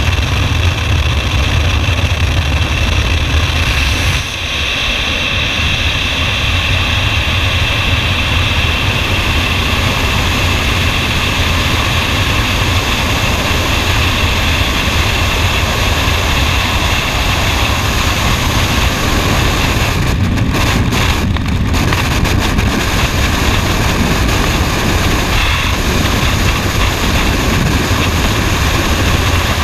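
Wind roaring over a helmet camera's microphone in skydiving freefall, a loud, steady rush with deep buffeting. For the first four seconds or so it is the small plane's engine and propeller noise at the open door, changing to the freefall wind rush after the exit.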